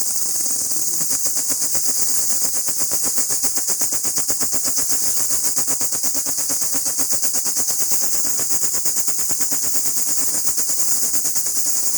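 Loud, high-pitched insect chorus, such as cicadas or crickets, buzzing in a rapid, even pulse several times a second.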